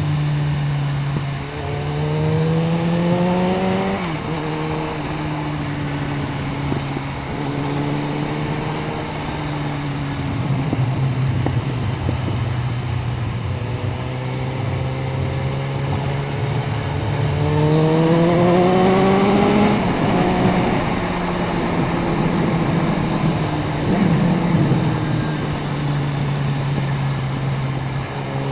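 Suzuki Bandit 650N's inline-four engine pulling hard on the move, rising in pitch twice as it accelerates and dropping back at each upshift, with steady wind rush over the microphone.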